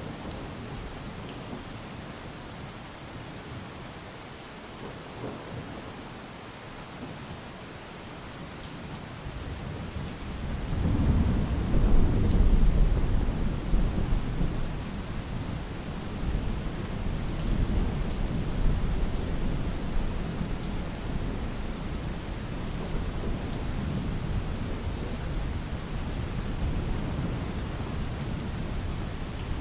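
Steady rain falling, with a long low rumble of thunder that swells up about ten seconds in, is loudest shortly after, and slowly dies away.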